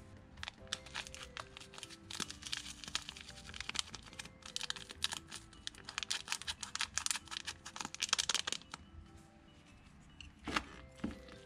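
A small plastic furikake seasoning packet crinkling and tearing open, with dense crackling from about two seconds in until near the nine-second mark, then a few louder handling clicks. Background music plays underneath.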